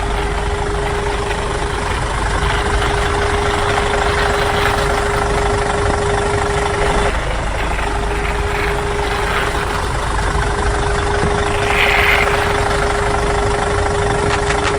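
Steady engine-like running sound with a constant hum, broken briefly about seven seconds in.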